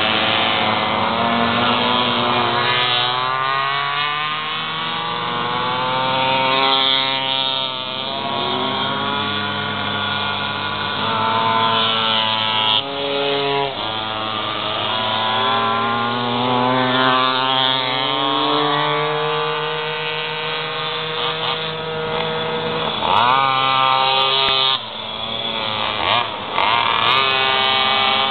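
Several pocketbike engines racing, each revving up and dropping back again and again through the turns, their pitches crossing and overlapping.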